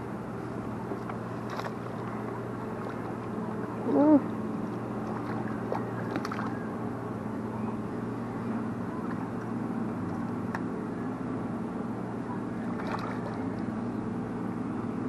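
A hooked carp splashing at the surface as it is played in to the landing net, a few light splashes and clicks over a steady low hum. A short voice sound about four seconds in.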